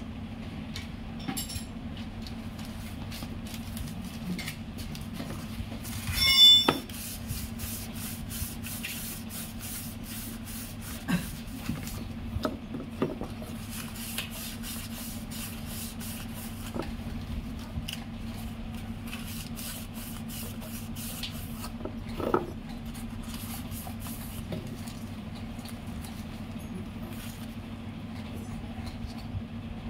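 Engine-assembly handling sounds: scattered clinks and knocks of metal engine parts and tools over a steady low hum, with one loud ringing metal clink about six seconds in, followed by a stretch of quick, even faint ticks.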